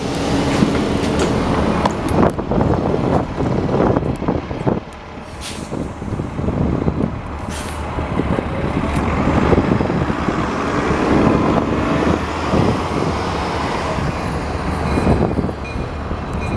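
Diesel city bus running, with a steady low rumble, as a passenger climbs off, mixed with many short knocks and rustles of the camera being carried. The noise dips briefly about five seconds in.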